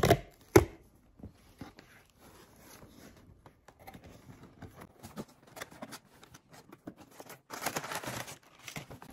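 Cardboard shipping box being opened: the perforated tear strip ripped with two sharp tearing sounds at the start, then light scrapes and rustles as the flaps are handled, and a spell of crinkling near the end as brown paper packing is pulled out.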